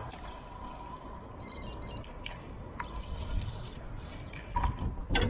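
Bicycle rolling along, with steady road and wind noise, a faint steady whine and scattered light clicks and rattles, and a sharp knock near the end.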